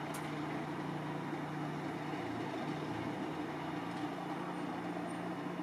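Diesel train engines running with a steady low drone.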